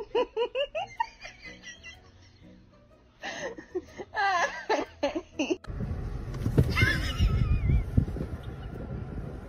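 People laughing in two bursts of choppy, up-and-down giggling. Just past halfway it gives way to a steady low rumble with a brief high-pitched call in it.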